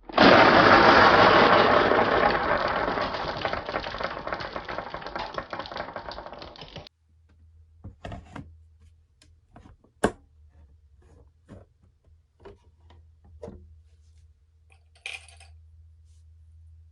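Marbles clattering down a toy marble-run track: a dense, loud rattle of many marbles that fades over about seven seconds and then stops abruptly. Scattered single clicks and taps follow as marbles knock against the track, with one sharper click around ten seconds in and a short rattle near fifteen seconds.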